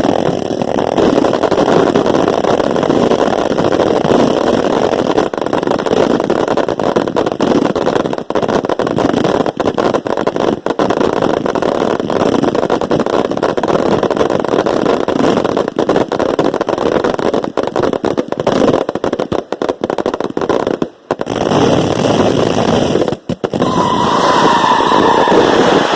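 Grand finale of 1.4G pro-line consumer firework cakes (Wizard, 76 and Dominator) heard from close below: a dense, continuous barrage of launch thumps, bursts and crackle, with two brief lulls near the end before it builds again.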